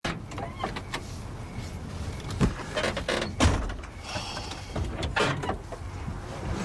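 Knocks and clicks inside a car over a low rumble, the loudest about two and a half, three and a half and five seconds in.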